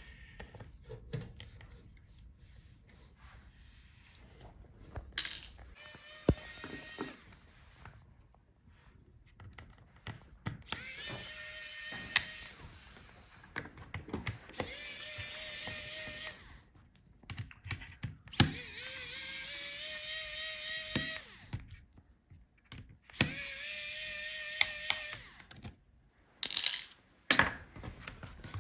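Electric screwdriver backing out the laptop's hinge screws: its small motor whines steadily in four runs of one to three seconds each, with clicks and knocks of the screws and tool between runs.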